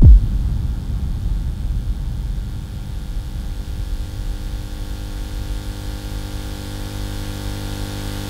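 A low thump as the music cuts off, then a steady electrical hum and buzz over a hiss of static, a tape-static sound effect.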